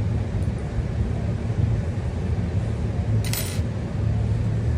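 A brief metallic clink of small metal paintball-marker parts being handled, about three seconds in, over a steady low hum.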